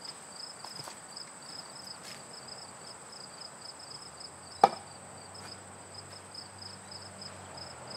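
A single machete chop about halfway through, a sharp strike with a short ringing tail as the blade cuts into the cannabis plant's stalk. Insects chirp steadily in an even, pulsing rhythm throughout.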